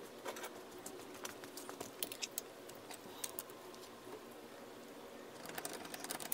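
Faint, irregular small clicks and scrapes of a screwdriver blade jammed into the split clamp of a Honda Super Cub C125's shift lever, prying it open to free the stuck lever from the splined shift shaft.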